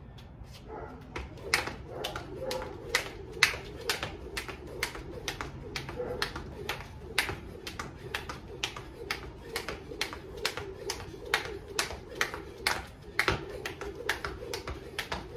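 Jump rope slapping a concrete path in an even rhythm, about two to three sharp ticks a second, as the rope is skipped.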